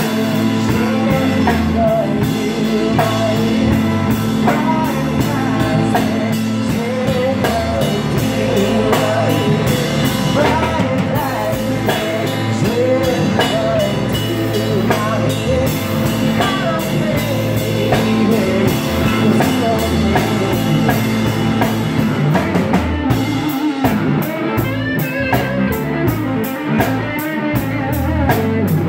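Live rock band playing: electric guitar, electric bass and drum kit together with a steady beat.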